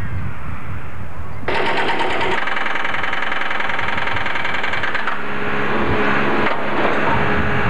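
A low rumble, then from about a second and a half in, a JCB 3CX backhoe loader's hydraulic breaker hammering rapidly into concrete over its running diesel engine.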